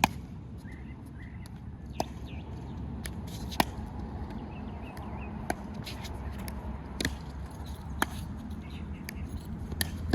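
Pickleball rally: paddles striking a plastic pickleball in sharp single pops every one to two seconds, over a steady low rumble.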